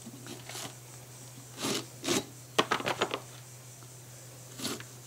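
Ripe jackfruit being cut against an upright blade fixed in a wooden block: several short cutting sounds, with a quick run of clicks about two and a half seconds in.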